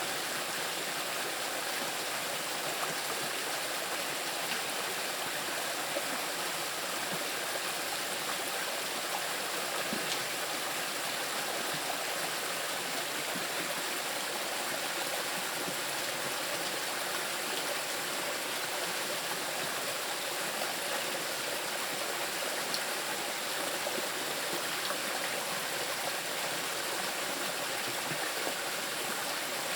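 Small river rushing steadily over moss-covered rocks, an even hiss of splashing water.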